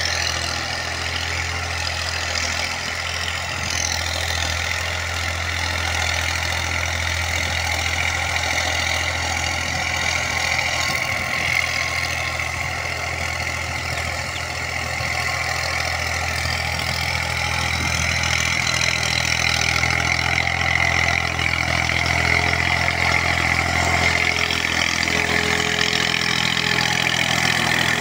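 Tractor's diesel engine running steadily while working a field, a constant low hum that grows a little louder in the second half.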